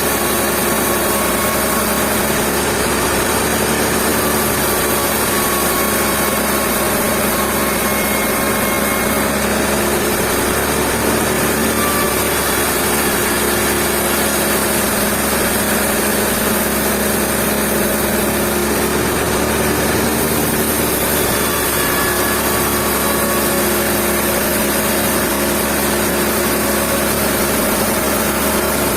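Sawmill machinery running with a steady mechanical drone, unbroken throughout.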